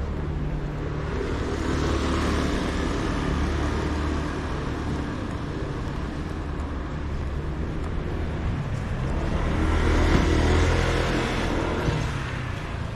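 City street traffic close by: a steady low engine hum, with two cars passing, one about two seconds in and a louder one about ten seconds in.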